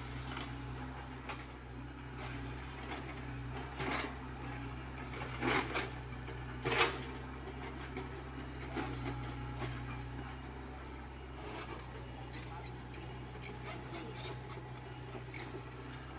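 Komatsu PC75UU mini excavator's diesel engine running steadily under hydraulic load while its bucket works the gravel, with a few sharper scrapes or knocks in the first half.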